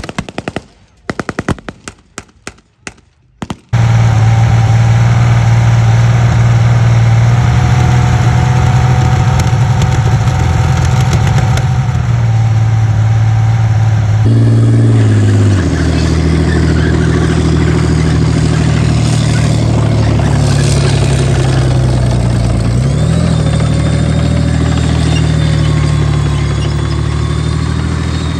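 A run of sharp rifle shots, blank fire from re-enactors. Then a loud, steady, even-pitched running of a Rolls-Royce Meteor V12 tank engine on a display stand. About 14 seconds in, a Challenger tank's diesel engine takes over, running with shifts in pitch and a brief rise in revs.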